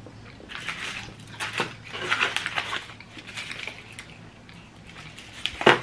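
A bite of dark chocolate with roasted almonds being chewed close to the microphone, crunching, along with the crinkle of its foil-and-paper wrapper being handled. A single sharp click comes just before the end.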